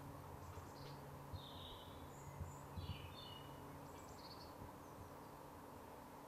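Faint outdoor background noise with several short bird chirps in the first half, and a few soft low bumps around the middle.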